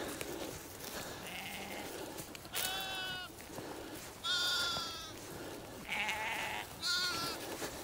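Villnösser Brillenschaf sheep and lambs bleating: about four short, high-pitched bleats from about two and a half seconds in, each a second or so apart.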